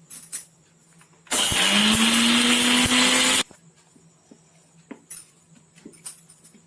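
Electric mixer grinder (mixie) run in one short burst of about two seconds, its motor whine rising slightly as it spins up, then cut off abruptly. It is grinding the cooled, sautéed garlic, shallot and herb mixture dry, with no water added. A few light clicks of handling come before and after.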